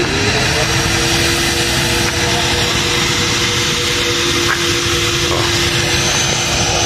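An engine or motor spinning up and then running steadily at high speed, giving a constant whine over a loud hiss.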